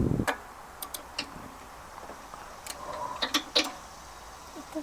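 A dull thump, then scattered sharp metallic clicks and taps of a spark plug socket and plug wire being handled at the spark plug of a pressure washer's small engine.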